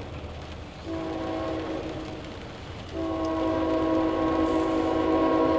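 Air horn of an approaching CSX intermodal train's locomotive sounding a steady multi-note chord, heard from inside a car. One long blast starts about a second in and fades, and a louder blast begins about three seconds in and holds on.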